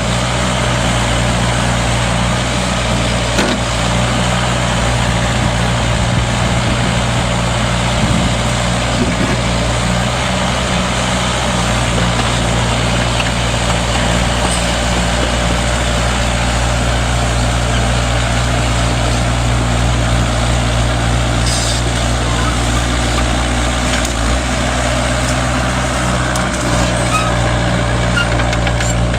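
Mini Kubota excavator's diesel engine running steadily at working speed while it digs, with a few faint knocks.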